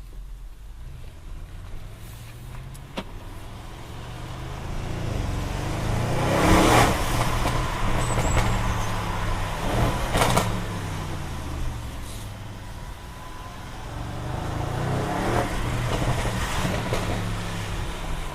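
Audi RS6 C7 Performance's 4.0-litre twin-turbo V8 accelerating hard through the gears. The engine note climbs, drops at each shift and climbs again, building up twice, with loud sharp bursts from the exhaust at the shifts.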